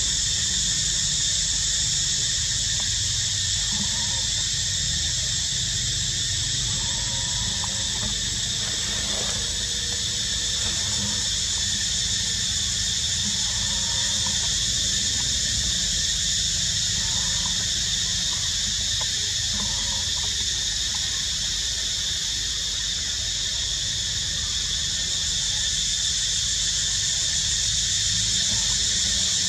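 Steady, high-pitched insect drone that holds a constant pitch throughout, over a low rumble.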